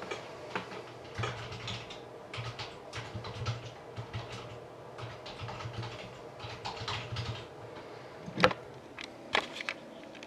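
Typing on a computer keyboard in quick runs of key clicks, followed near the end by a few sharper, louder clicks.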